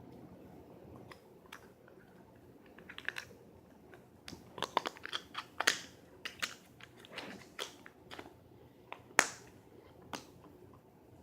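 Small plastic Play-Doh tubs being handled: irregular clicks and crackles of plastic, with two sharper clicks standing out.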